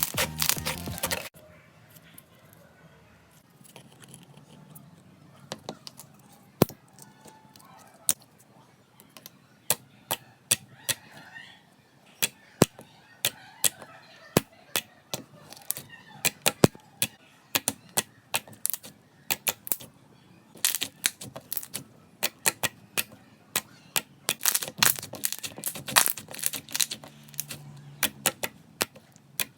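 Slime being squeezed and poked by hand, giving sharp clicks and pops of trapped air. A dense crackle cuts off about a second in; the pops then come sparsely and grow thick again near the end.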